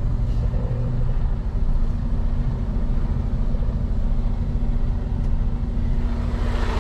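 Semi-truck's diesel engine running under light load at low speed, a steady low drone, with a broader hiss coming up near the end.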